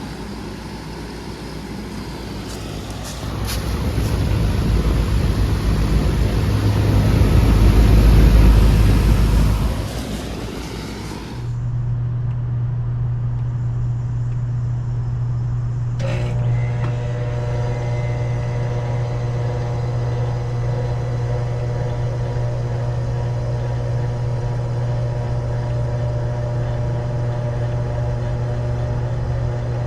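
Loud rushing noise with a deep rumble swells and then cuts off abruptly about eleven seconds in. A Bard wall-mount air conditioner's steady low hum then starts, and about four seconds later a click brings in a fan motor's steady whir of several tones as the unit comes up in cool mode.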